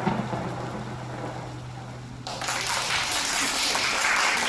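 The end of the song fades out as a low held tone with a soft rain-like hiss. About two seconds in, hand clapping starts suddenly and keeps going.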